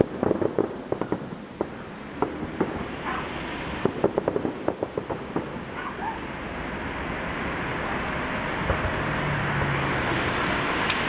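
Fireworks bursting, a quick run of sharp pops and crackles for the first several seconds. After that a rushing noise swells steadily louder.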